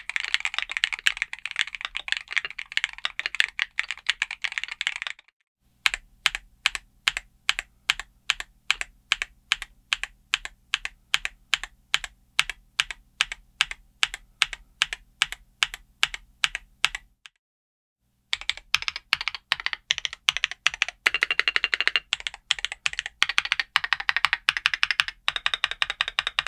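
Typing on a Keebforce & Everglide AE68 Pro aluminum Hall Effect keyboard with Everglide WuKong magnetic switches and transparent keycaps. It opens with fast continuous typing, then slows to evenly spaced single keystrokes about three a second. After a brief pause it returns to fast typing.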